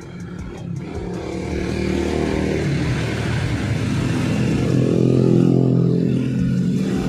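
A motorcycle engine passing on the street. Its note and loudness build to a peak about five seconds in, then fade near the end.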